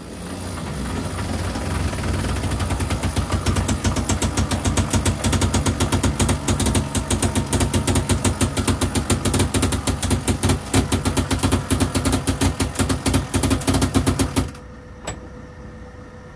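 Sailboat's onboard motor machinery running hard with a fast, even knocking rhythm. It builds up over the first couple of seconds and cuts off suddenly about fourteen seconds in, leaving a quieter steady hum.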